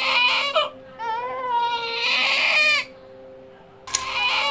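Newborn baby crying: a short wail, then a longer wavering one, a pause, and another wail starting near the end, just after a sharp click.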